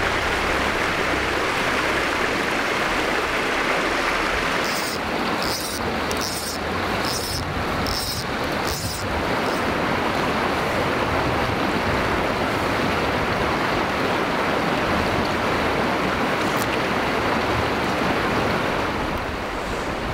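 Rushing river water running loud and steady. A run of about six short, sharp ticks comes about five to nine seconds in.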